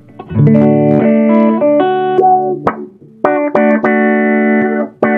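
Electric guitar played through a pedal chain: held chords and picked notes that ring steadily without wobble, stopping for about half a second partway through and again briefly near the end.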